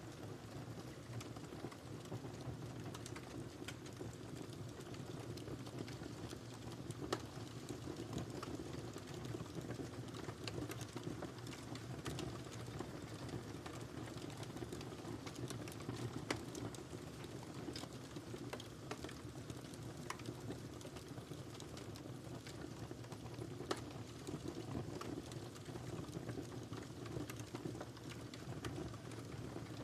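Wood fire burning in a fireplace: a steady low rush of flames with constant small crackles and a few louder pops.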